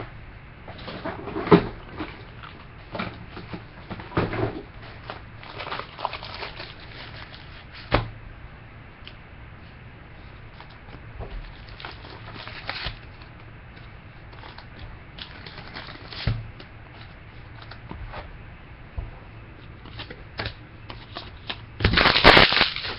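Trading cards and their packaging being handled: scattered short clicks, slides and rustles, with a louder stretch of rustling near the end.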